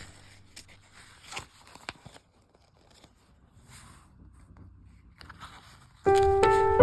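Faint rustling and a few light taps from paper craft materials and packaging being handled, with a brief near-silent pause. Piano music starts suddenly near the end.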